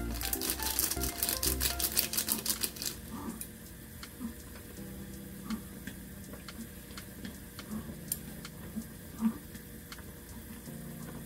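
A plastic seasoning sachet crackling as it is shaken and squeezed out over a pan for the first three seconds or so. Then wooden chopsticks stir the noodles, with sharp clicks against the pan every second or so, over soft background music.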